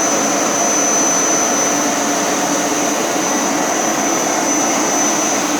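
Hoover Power Scrub Elite carpet cleaner running steadily while it is worked over a carpet stain, a constant motor rush with a thin high whine over it.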